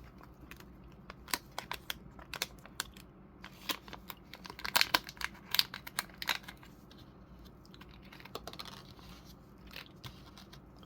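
Small plastic bag and packaging being handled: intermittent crinkling with scattered sharp clicks, busiest around the middle.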